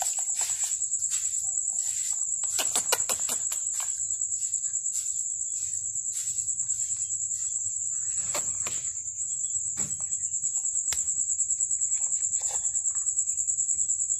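An inflated pufferfish held in a hand gives short bursts of grating, clicking croaks, the sound it makes when caught and puffed up. A steady high chirring of crickets goes on throughout.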